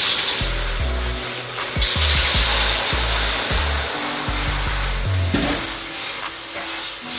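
Loud sizzling hiss from a hot carbon steel wok, over background music with a low, stepping bass line.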